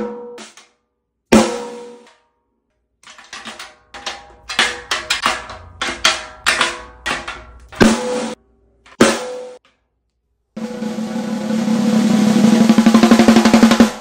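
Brass snare drum with an Evans Heavyweight batter head, tuned high, struck with a stick as a final pitch check. A few single ringing hits come first, then a quick run of strokes, then a continuous drum roll over the last three seconds that grows steadily louder.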